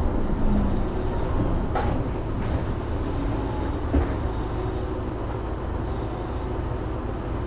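Isuzu Erga Hybrid city bus heard from inside the passenger cabin: a steady low rumble from its diesel-hybrid drivetrain and the running gear, with two sharp clicks or rattles about two and four seconds in.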